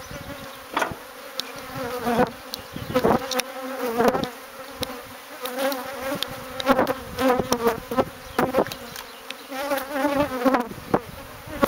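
Honey bees from a disturbed colony buzzing in a steady hum, the pitch wavering up and down at times as bees fly close. Scattered knocks and clicks from handling the comb and hive run through it.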